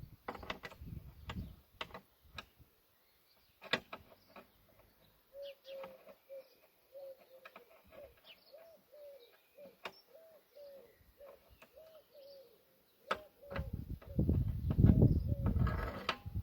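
Scattered sharp clicks and clinks of hands working on hydraulic hose fittings, while a bird in the background repeats a short, arching call about twice a second. Near the end a louder low rustling rumble of handling takes over.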